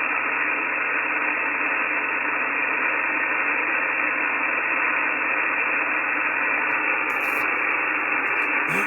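Steady band noise from an HF amateur radio receiver on 17 metres, an even hiss cut off above the narrow sideband passband. Near the end a short gliding tone rises and falls.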